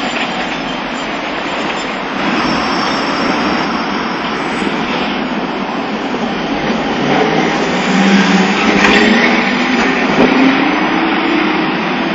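Streetcars of the Nagasaki Electric Tramway running on street track amid road traffic: a steady rolling rumble. About seven seconds in, a motor whine comes in and rises in pitch, with a few sharp clicks.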